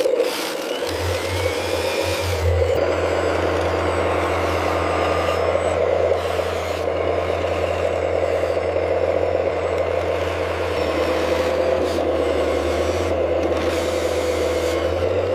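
Radio-controlled scale construction trucks running with a steady engine-like hum.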